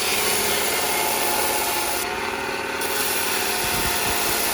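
A power grinder grinding steel spur stock down to thickness: a steady rasping hiss over the motor's whine, the high hiss easing off for a moment about two seconds in.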